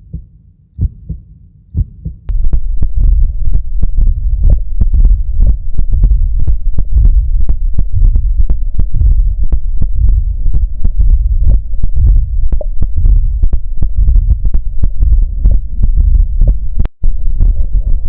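Heartbeat recorded through a smartphone stethoscope app: regular beats over a steady low hum, faint at first and loud from about two seconds in, with a brief dropout near the end. It is played as an example of a diastolic murmur, which is always a sign of heart disease.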